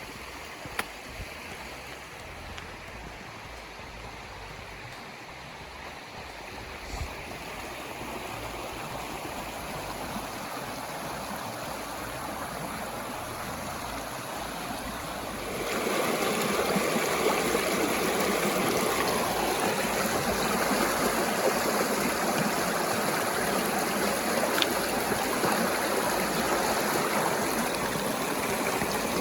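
Mountain creek running, a steady rush of water that builds slowly and then jumps louder about halfway through.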